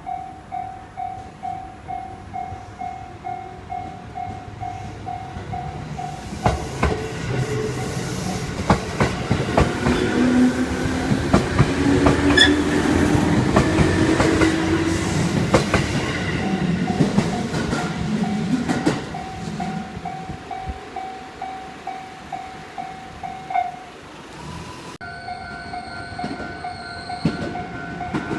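A Japanese level-crossing bell clangs in a steady rapid rhythm while a JR Nara Line electric train passes over the crossing, its wheels clacking over the rail joints. The bell is covered while the train goes by and is heard again as it clears.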